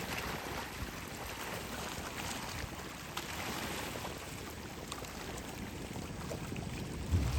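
Steady wash of wind and sea water, with a few faint small ticks.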